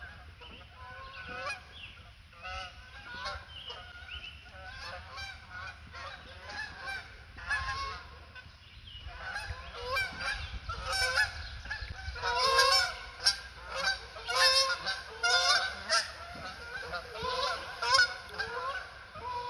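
A flock of geese honking, many overlapping calls that grow louder and busier about halfway through.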